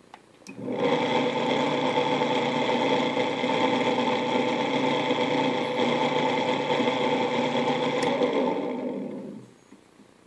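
Benchtop drill press motor switched on, running steadily for about eight seconds with a constant hum, then switched off and spinning down. A No. 46 drill bit in the chuck is being run through a 3D-printer hot end to clear out old plastic.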